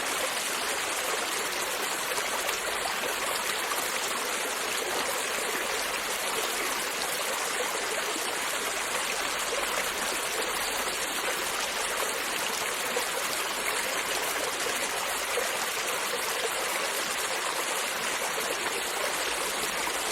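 A creek flowing, a steady rushing and babbling of water over stones that keeps an even level throughout.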